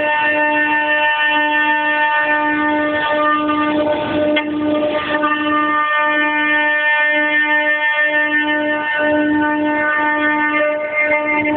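Stepper motors of a CNC machine whining at a steady pitch, in runs of about a second separated by short breaks as the machine moves from one stroke to the next.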